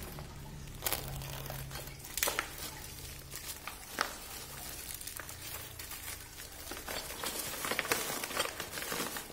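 Plastic postal mailer bag crinkling and rustling as it is slit with a craft knife and pulled open by hand, with a few sharp snaps of the plastic and denser crackling near the end.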